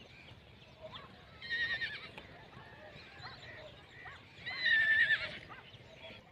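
Horse neighing twice, each a wavering call of under a second; the second is louder.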